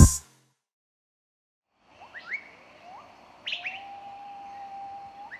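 Music cuts off at the start. After about two seconds of silence come bird-like chirps: short rising chirps, then a long steady whistled note that ends in a quick upward glide.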